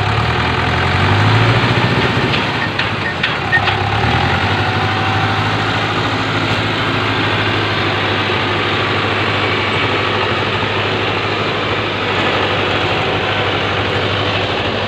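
Vehicle engine running hard: its note rises over the first couple of seconds with a few clicks and knocks, drops about four seconds in, then settles into a steady hum.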